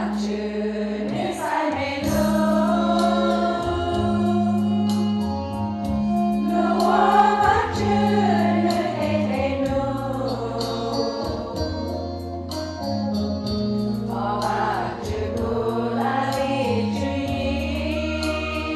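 A women's choir singing a hymn together, over held low accompaniment notes that change every few seconds.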